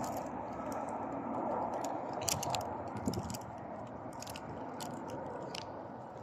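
Airbus A330-300 jet engine noise, a steady rush that slowly fades away, with scattered small clicks and crackles throughout.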